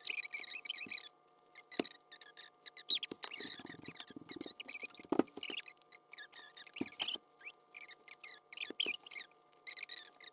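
Rubber bands squeaking in quick, irregular spurts as they are stretched and wrapped around rubber band balls by hand, with a few sharp clicks.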